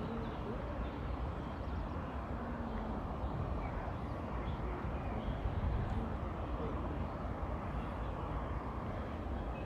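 Steady outdoor background noise: an even, low rumble and hiss with a few faint chirps.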